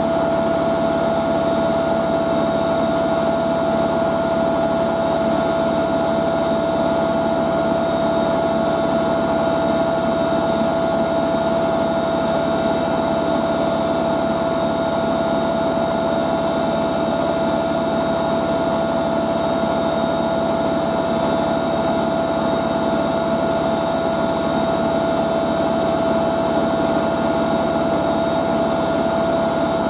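Hoover A3060 Electronic 1100 front-loading washing machine in its final high-speed spin of up to 1100 rpm, running loud and steady with an unchanging high-pitched whine. The motor bearings screech a little, which the owner puts down to the machine having had so little use.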